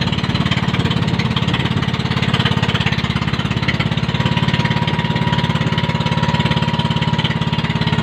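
Outrigger fishing boat's inboard engine running steadily under way, a fast even beat, with water rushing and splashing along the hull and outriggers.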